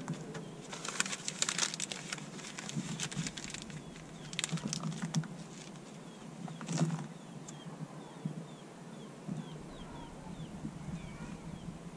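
Clattering and crackling as wood and embers are handled in the mouth of a clay dome oven, in clusters of sharp clicks, densest in the first few seconds. In the second half a bird chirps a quick series of short, faint downward chirps.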